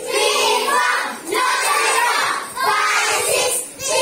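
A class of young children singing together in unison, in three phrases of a bit over a second each with short breaks between them.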